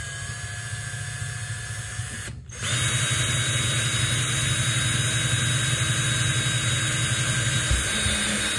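Electric drill boring a hole through the plastic wall of a hard-shell case, running steadily with a whine. It stops briefly about two and a half seconds in, then starts again louder and runs on.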